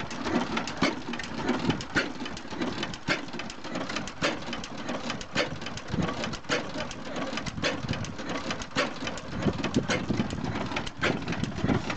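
6 HP Amanco stationary oil engine running at a slow, even pace, with a sharp knock about once a second over a constant mechanical clatter.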